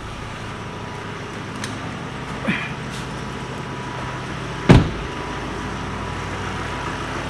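Ford Tourneo Custom's EcoBlue diesel engine idling steadily, running smoothly just after a new fuel filter was fitted and the fuel system primed by cycling the ignition. A single loud thump comes about two-thirds of the way through.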